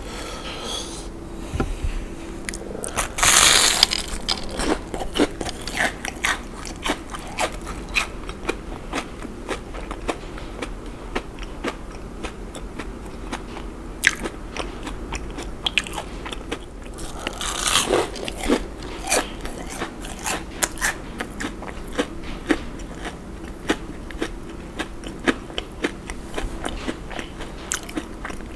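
Close-miked bites into a crispy breaded, deep-fried shrimp donut, with a loud crunch about three seconds in and another around eighteen seconds, and steady crisp chewing crunches in between.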